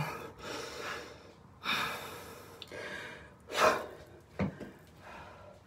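A woman breathing hard and out of breath after a cardio workout: about four heavy, gasping breaths, the loudest a little over halfway through.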